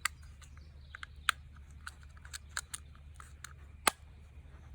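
Sharp clicks and taps of the grip being fitted back onto an Umarex Beretta 92 CO2 air pistol, irregular and uneven in loudness, with one loud click near the end.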